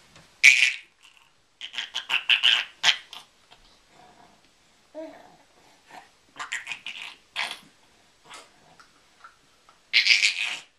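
A child making silly mouth noises: runs of short hissing, spluttering bursts, some in quick rapid-fire strings, with the loudest bursts near the start and at the end.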